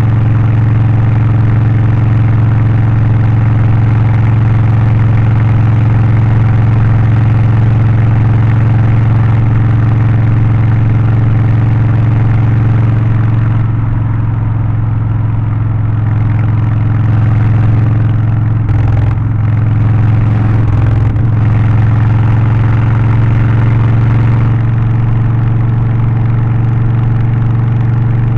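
Harley-Davidson Low Rider ST V-twin with a Stage 1 setup (remap, aftermarket exhaust, air filter) running at a steady, unchanging engine speed, with its deep exhaust note. Two brief knocks come about two-thirds of the way through.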